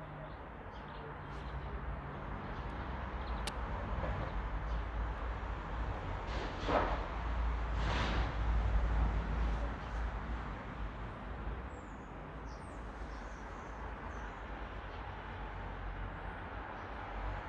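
Steady outdoor rumble, heaviest in the low end, with two brief swells about halfway through and faint bird chirps above it.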